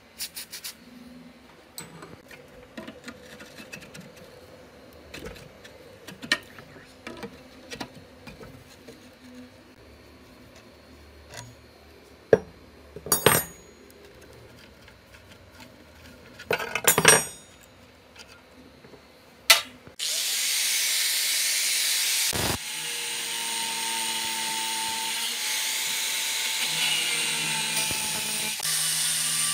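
Small clicks, knocks and a few short hissing bursts as a rusted fan motor is handled and sprayed from an aerosol can. About two-thirds of the way in, an angle grinder starts and cuts into the motor's rusted steel bracket, running loud and steady, with a brief dip soon after it starts.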